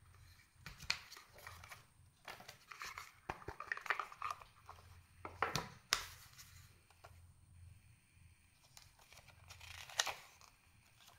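Paper leaflets and a card being handled, slid out of a small cardboard box and leafed through: irregular rustling and crinkling with a few sharper scrapes, loudest about four, six and ten seconds in.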